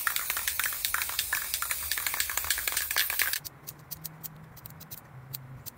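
Aerosol spray can of clear gloss hissing in quick, uneven spurts. It cuts off about three and a half seconds in, leaving a faint low hum and a few sharp clicks.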